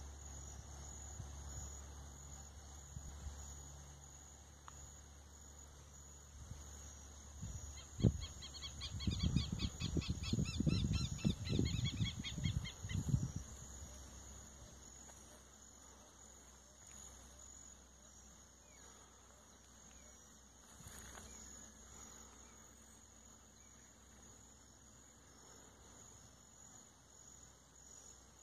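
Steady high-pitched chirring of a cricket and insect chorus. Between about eight and thirteen seconds in, a few seconds of low rumbling thumps and a fast, higher trill rise over it, then fade.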